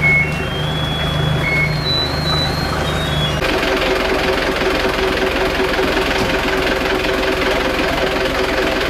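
Engine of a truck carrying a UNIC truck-mounted crane idling, then about three and a half seconds in it abruptly picks up and runs harder and noisier with a steady tone, driving the crane's hydraulics to hoist a large bronze four-blade ship propeller.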